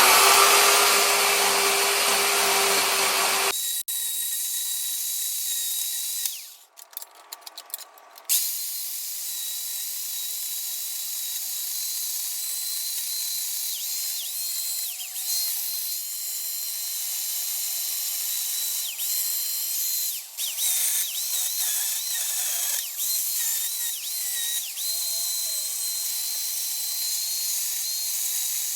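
Worx electric chainsaw running and cutting wood in sweeping passes to round off sharp corners. Its high whine dips again and again as the chain bites, with a short break about seven seconds in.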